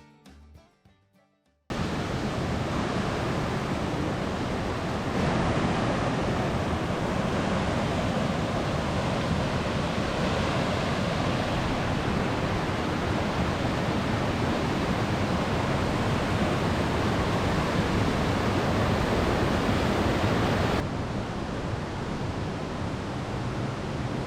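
A tall straight-drop waterfall, about 60 m, giving a steady rushing noise of falling water. It steps a little louder about five seconds in and softer again near the end.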